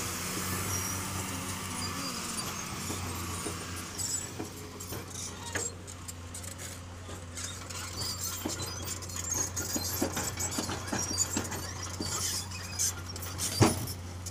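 Heavy diesel engines of a truck and an excavator running steadily at low revs, with scattered clicks and ticks through the second half and one sharp knock near the end.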